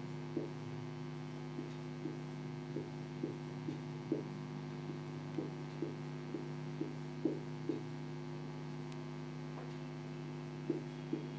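Marker pen drawing small circles on a whiteboard, a string of short soft ticks about two a second that stop for a couple of seconds near the end and then start again, over a steady electrical hum.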